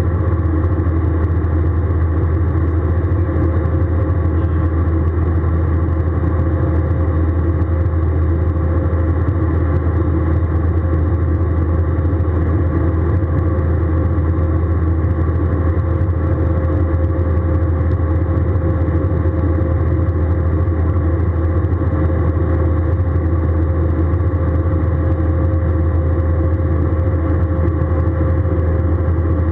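Steady in-flight cabin drone of an Airbus A320 airliner: a deep, even hum of engines and airflow, with a thin steady whine above it.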